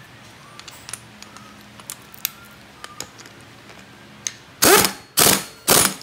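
Small metal clicks and ticks of tools and motorcycle engine parts being handled, then three short, loud bursts of noise in quick succession near the end.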